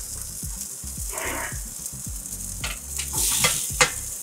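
Potato wedges sizzling in the hot chicken roasting juices of an oven tray: a steady crackling hiss. A few clicks and scrapes of metal tongs against the tray come in the second half.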